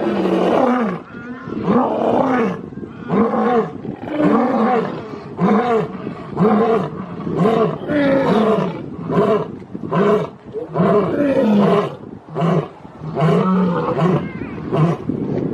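Lion roaring: a long series of short, deep grunting calls, each rising and falling in pitch, about one and a half a second, becoming shorter and flatter near the end.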